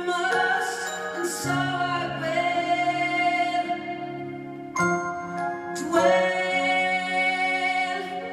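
Live keyboard accompaniment playing sustained chords that change a few times, in a slow ballad.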